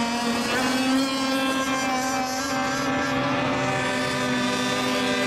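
Radio-controlled racing boat engines running steadily on the water, a high buzzing drone that wavers slightly in pitch.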